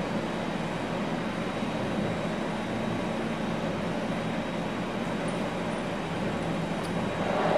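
Steady background room noise: an even hiss with a low hum. It shows no distinct handling sounds from the atomizer parts.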